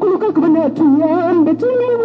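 A woman's high voice, trembling and wavering in pitch, over low steady background music.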